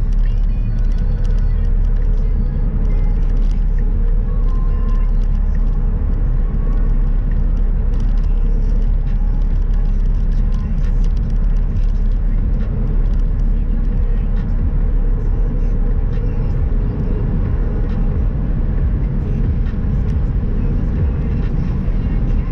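A car driving, with a steady low road and engine rumble and no change in pace.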